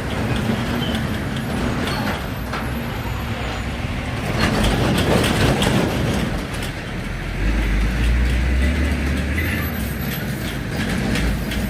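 Heavy vehicle traffic at a railway level crossing: a steady mechanical din with a louder run of clattering knocks about four seconds in, then a deep low rumble from about seven seconds on.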